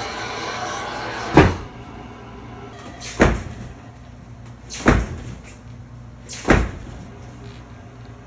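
Four loud bangs at an even pace, each a bit under two seconds apart, like a door slammed or a set wall struck hard to scare the sleeper.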